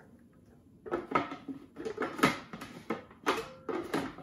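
Clear plastic lid and feed-tube pusher of a Bosch MCM food processor knocking and clicking against the bowl as they are worked into place, a run of short clatters starting about a second in. The lid is catching instead of seating, with the motor off.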